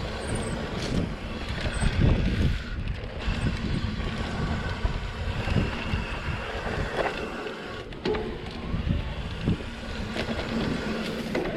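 Norco Range VLT electric mountain bike ridden along a dirt trail: wind buffeting the microphone, with a steady rumble of tyres over the ground and scattered knocks and rattles from bumps.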